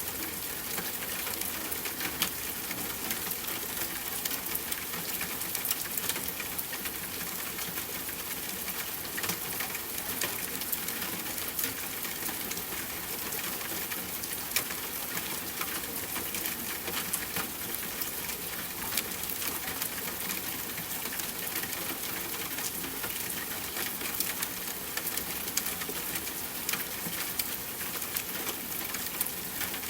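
Steady soft rainfall, an even hiss of rain with many sharp drop ticks scattered through it.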